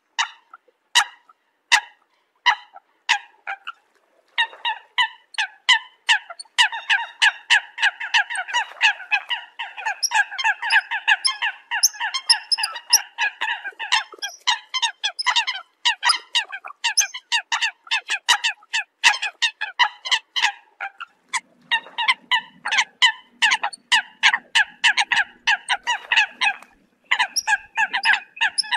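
A flock of Eurasian coots calling: short, sharp calls, spaced out at first, then about four seconds in many birds overlap in a dense, rapid chatter.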